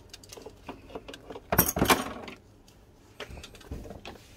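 Plastic dolls and dollhouse pieces being handled: scattered small clicks and knocks, with a short rattling clatter about one and a half seconds in.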